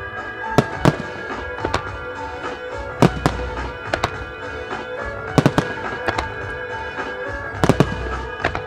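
Aerial firework shells bursting with sharp cracks over steady music. There are two reports within the first second, a pair around three seconds in, a quick group of three around five and a half seconds, and another group of three near the end.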